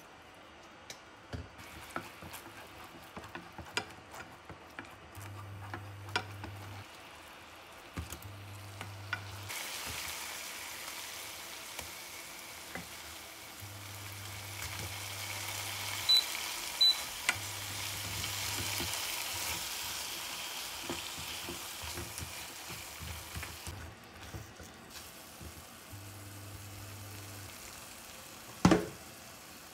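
Butter-garlic sauce sizzling in a nonstick frying pan, with many small clicks of stirring and tossing. The sizzle grows louder once the fried chicken wings are in the sauce, two short high beeps sound about halfway through, and a single loud thump comes near the end.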